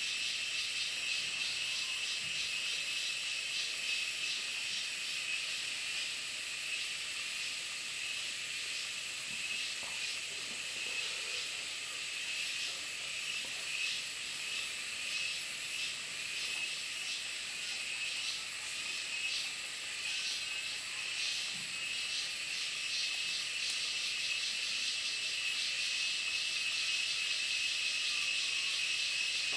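Steady high-pitched chorus of forest insects, with a fast pulsing running through it.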